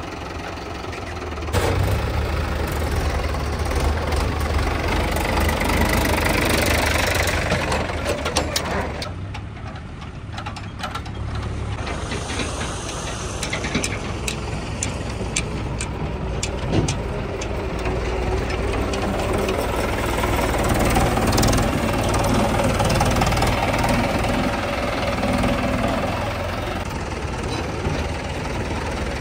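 Diesel tractor engine running steadily, louder from about a second and a half in, easing off briefly around the middle, then steady again.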